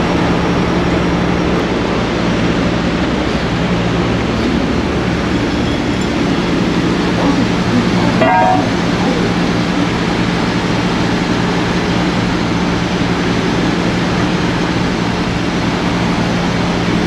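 Heavy diesel truck engine running at a steady idle, with a short pitched sound about eight seconds in.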